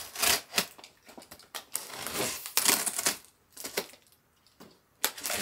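Cardboard box and packaging being rummaged through, rustling and crackling in irregular bursts with small clicks and knocks, with a short lull about two-thirds of the way through.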